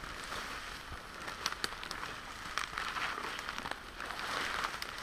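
Footsteps crunching through dry grass and brush, with leaves and twigs crackling and clothing rustling in an irregular pattern.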